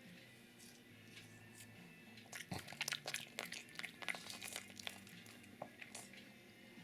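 Pug chewing a piece of mandarin orange: a quick run of smacking chewing clicks starting about two seconds in and dying away about five seconds in.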